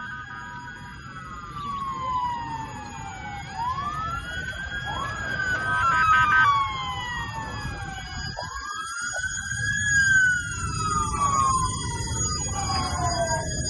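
Several emergency vehicle sirens wailing at once and overlapping, each rising quickly and falling slowly, over a low rumble. The sound cuts out briefly near the middle.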